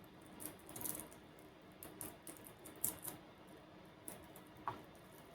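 Faint scratchy rustles and light taps of hands working smashed garlic cloves, pulling off the papery skins. A sharper click comes about three seconds in, and a brief squeak near the end.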